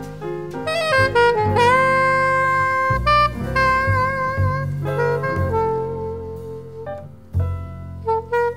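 Jazz background music with a saxophone playing the melody, holding some long, wavering notes over a low bass line.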